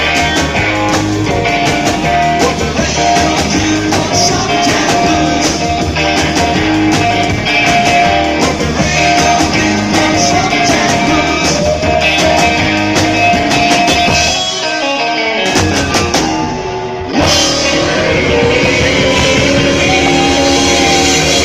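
Live rock band playing electric guitar and drum kit, loud. About fifteen seconds in, the drums and low end drop out for a couple of seconds in a break, then the full band comes back in.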